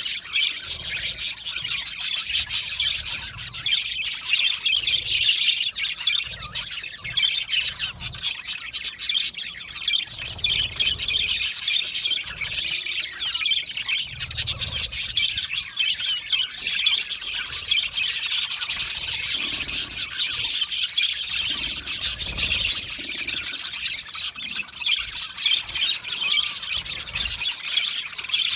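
A flock of budgerigars chirping and chattering, a dense, continuous mix of many overlapping chirps, warbles and rapid clicks.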